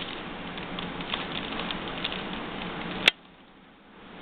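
Plastic 3x3 Rubik's Cube being turned rapidly, its layers clicking and rattling in a quick irregular run while the last layer is completed. It ends with one sharp click about three seconds in, after which the cube falls quiet.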